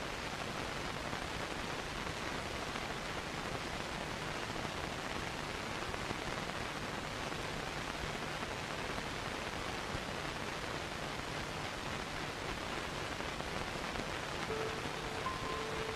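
Steady, even hiss of noise, like rain or surf, with no swells or breaks. About a second and a half before the end, a few sustained high instrumental notes begin over it.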